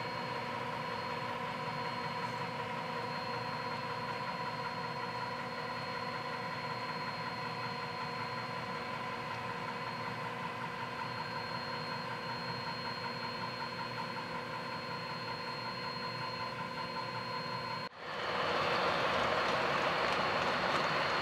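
HO scale model coal train running on the layout: a steady mechanical hum with several constant tones. After a cut about 18 seconds in, it turns into the louder rolling clatter of the loaded hopper cars passing close by.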